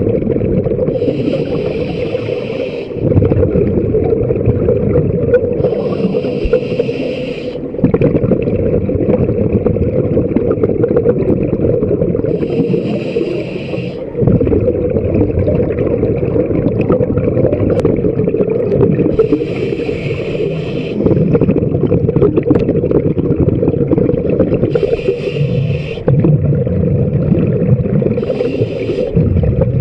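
Scuba diver breathing through a regulator, heard underwater: about every six seconds a short hiss of inhalation, followed each time by a longer spell of louder, lower bubbling as the breath is exhaled. A steady low water noise runs under it throughout.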